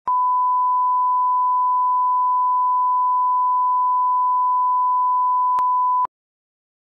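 Steady 1 kHz line-up test tone, the reference tone that accompanies television colour bars, held at one pitch for about six seconds and then cutting off suddenly, with a faint click shortly before it stops.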